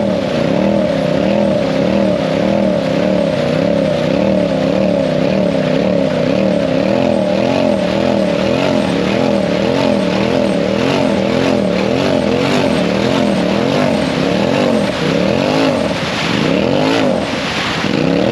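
Side-by-side UTV engine revved up and down over and over as the bogged machine tries to drive out of deep mud, its wheels spinning. The pitch rises and falls in a quick repeated rhythm, swinging wider near the end.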